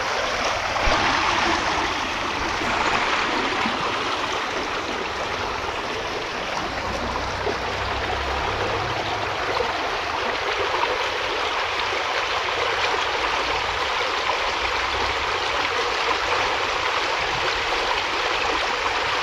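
Shallow stream water rushing and rippling over rocks, a steady flowing sound.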